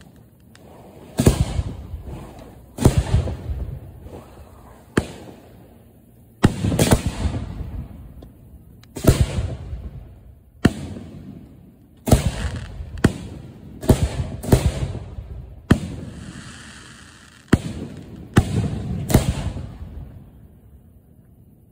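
Display firework shells fired from mortar racks at close range: about fourteen sharp bangs at irregular intervals of one to two seconds, each trailing off in rumble and crackle.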